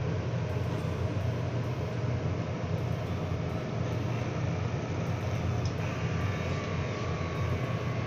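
French bulldog snoring in its sleep, a steady low rumble.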